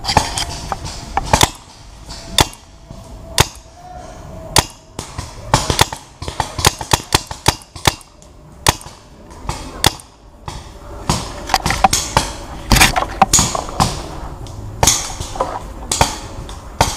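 Paintball markers firing: irregular sharp pops, about one a second and some in quick pairs.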